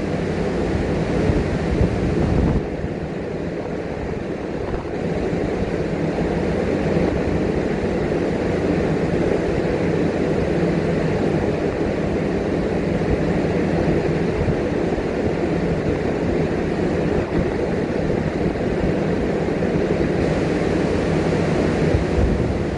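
Steady low rumble of wind on the microphone and a calm sea, with a faint steady hum underneath. It eases briefly about two and a half seconds in, then comes back.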